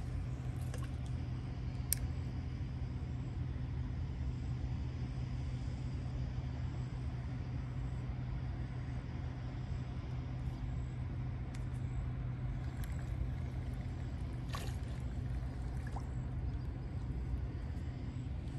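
A steady low mechanical hum over a rumble, with a few faint clicks, one about two seconds in and another near 14 seconds in.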